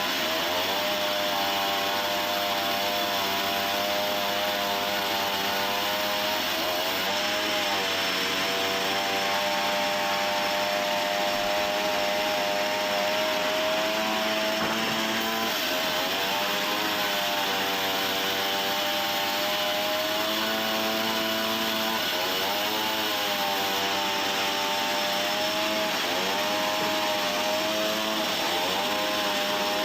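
Sawmill saw running steadily while sawing softwood, with a machine hum whose pitch dips briefly and recovers every several seconds.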